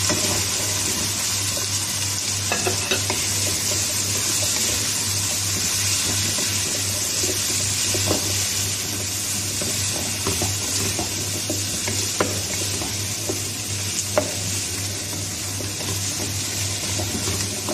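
Squash cubes, onion and tuna frying in a little oil in a deep pan: a steady sizzle, stirred with a wooden spoon that knocks against the pan a few times.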